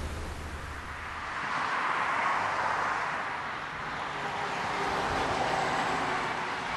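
A vehicle passing by: a rushing noise that swells, eases, and swells again.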